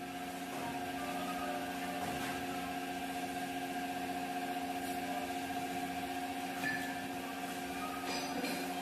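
A machine-tool motor running steadily with a constant, even hum, with a few faint ticks and scrapes, typical of metal being machined.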